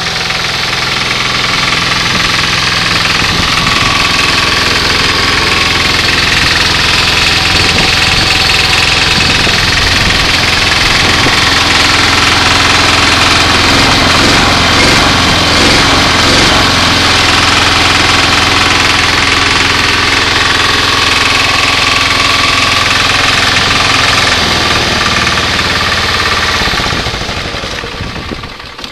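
A small gasoline engine running steadily under a hissing water spray while a dust-caked mower engine is rinsed; both die down near the end.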